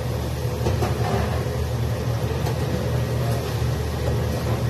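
Steady low machine rumble of commercial kitchen equipment, with a few faint clicks of metal being handled.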